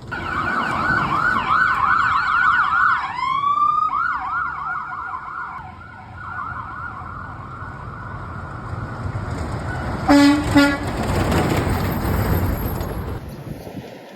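Emergency vehicle siren in a fast yelp, with a brief rising sweep about three seconds in before the yelp resumes. About ten seconds in come two short air horn blasts, then the rumble of the vehicle going by.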